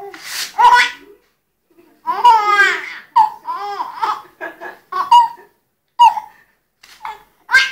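A baby laughing in a string of short, high-pitched bursts and squeals with brief pauses between them.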